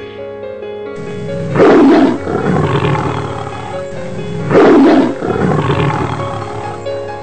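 Male lion roaring twice, about three seconds apart, each loud call tailing off afterward, over background music.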